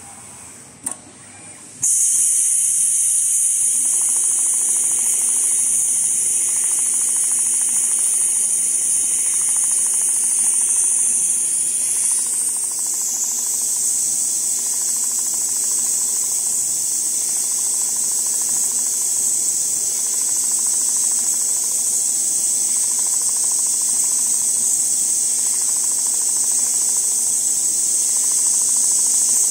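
CNC pattern sewing machine for leather running, heard as a loud, steady, high-pitched hiss that starts suddenly about two seconds in, with a faint hum beneath it.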